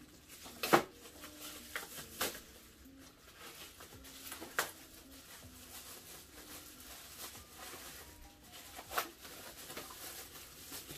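A package being cut and pried open with a knife: scattered sharp clicks and snaps of packaging, the loudest about a second in, the rest a few seconds apart.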